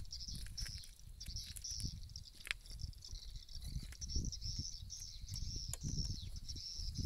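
Edible-nest swiftlets twittering, a dense run of rapid, high chirps repeating without pause. Wind rumbles unevenly on the microphone underneath.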